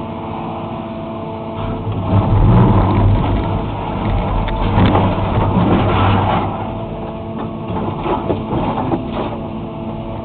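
Excavator's diesel engine running, loading up about two seconds in, with scraping and crunching as the bucket tears up asphalt. The engine eases back after about six seconds while scraping goes on.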